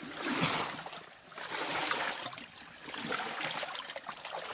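Shallow water sloshing and trickling as a person wades through a stone-lined underground irrigation canal, coming in uneven swells.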